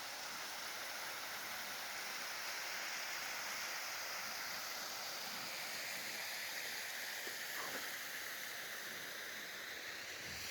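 Waterfall rushing in a steady, even hiss of falling water.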